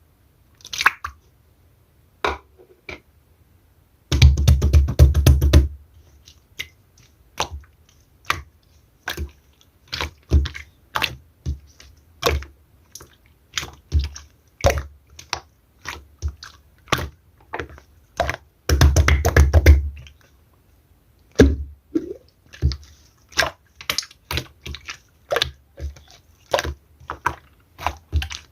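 Clear slime being pressed and stretched by hand, giving irregular sticky pops and clicks. About four seconds in, and again near the nineteen-second mark, there are longer runs of rapid crackling.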